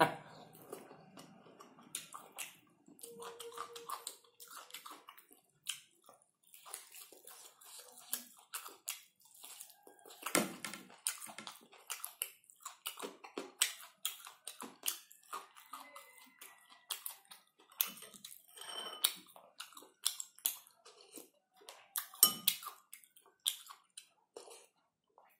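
A person chewing a mouthful of boiled pork and rice close to the microphone, with many short, irregular wet clicks of the mouth and lips.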